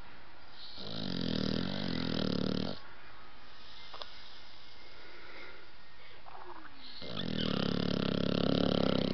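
Blue nose pit bull puppy snoring in its sleep: two long snores, each about two seconds, about four seconds apart, each a low buzz with a breathy hiss.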